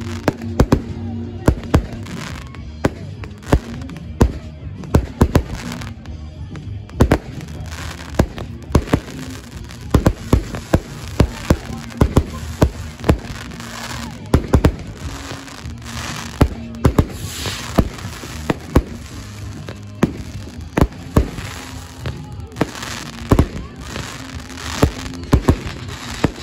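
Fireworks display: aerial shells bursting overhead in a long, irregular run of sharp bangs, sometimes several within a second.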